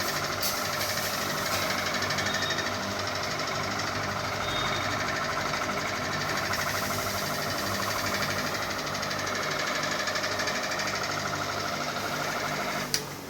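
Ceiling fan running with a steady, fast mechanical rattle. A sharp click comes near the end, and the noise then drops away.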